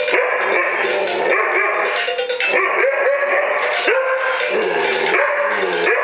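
An Alaskan malamute puppy howling and whining in repeated rising-and-falling calls, over the synthesized music of a Robosapien toy robot running its dance routine. The last call near the end drops low.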